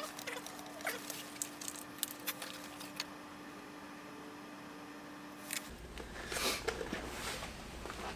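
Light clicks and handling noises as fork oil is measured out into a small plastic beaker, with a faint steady hum that stops about five and a half seconds in, followed by a few louder rustling sounds.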